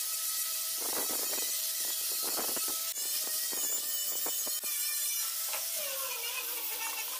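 Angle grinder fitted with a sanding pad running against plywood: a steady high motor whine over the hiss of the abrasive scrubbing the wood and old paint. The whine sags slightly in pitch about five to six seconds in.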